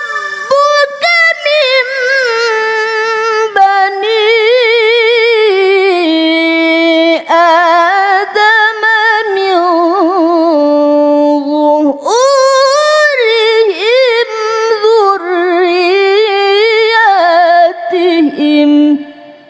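A woman chanting the Quran in the melodic tilawah style: long held, wavering notes and ornamented runs with brief breaths between phrases, climbing to a higher passage about twelve seconds in. The phrase ends just before the end and trails away.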